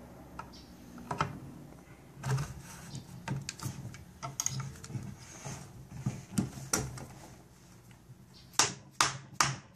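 Type 11 light machine gun's buttstock being slid onto the receiver, with scattered metal clicks and clunks. Near the end come four sharp taps in quick succession: a mallet knocking the stock forward to seat it fully on the receiver.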